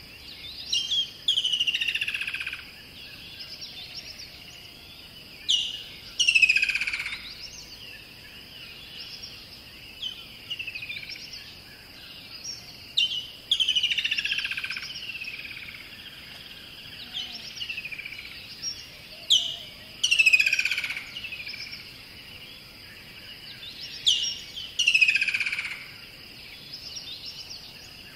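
A songbird singing the same phrase five times, about every six seconds: a sharp high note, then a loud slurred note falling steeply in pitch. A steady high-pitched drone runs underneath.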